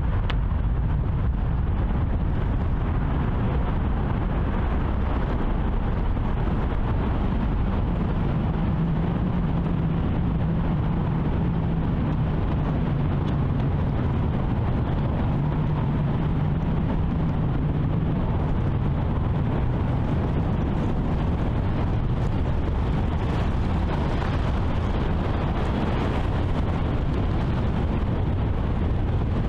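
Steady low rumble of wind on the microphone over open sea. A faint low hum rises out of it for about ten seconds in the middle.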